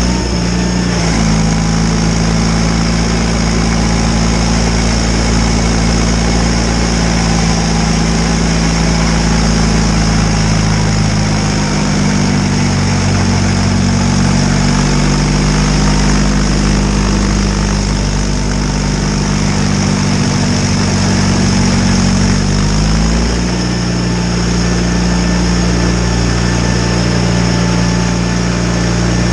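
John Deere 318 garden tractor's two-cylinder Onan engine running steadily while driving a Model 49 snowblower, with the whir of the blower over it. The engine note rises slightly about twelve seconds in and drops back after about ten seconds.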